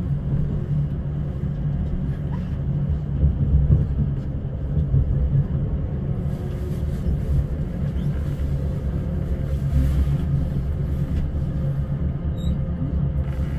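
Elizabeth line Class 345 electric train running at speed, heard from inside the carriage: a steady low rumble of wheels on rail and running gear, with a faint steady hum above it.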